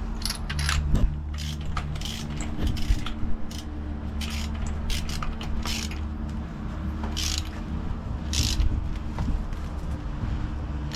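Irregular mechanical clicking and ratcheting over a steady low drone.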